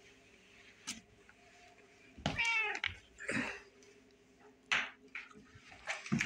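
Old domestic cat meowing once, about two seconds in, with a few sharp knocks of play on a wooden floor around it.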